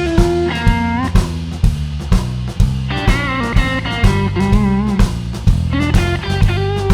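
Blues shuffle played by a band: a guitar melody with bent, wavering notes over drum kit and bass, the drums hitting about twice a second.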